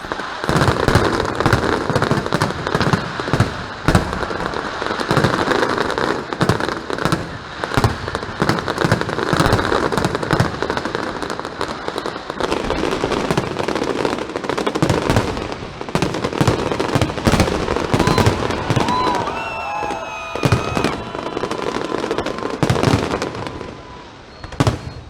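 Aerial fireworks going off in a dense, continuous barrage of bangs and crackling, with a few high wavering whistles partway through.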